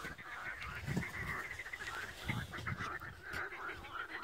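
A dense chorus of animal calls from the marsh: a continuous run of short, rapidly repeated calls. Two low thuds come about one second and two and a half seconds in.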